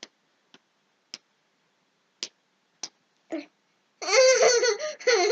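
A young child's voice: a handful of short, sudden little sounds about half a second to a second apart, then, about four seconds in, a loud high-pitched vocalising that wavers in pitch.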